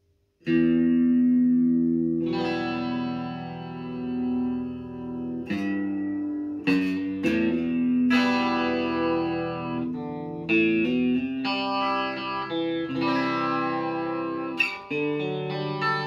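Electric guitar played through a Boss CE-2 chorus pedal (early silver-screw version) with the chorus switched on: a slow run of chords, each left to ring, starting about half a second in.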